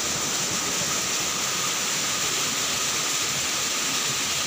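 Steady rushing of flowing water, even and unbroken, with a thin steady high tone running over it.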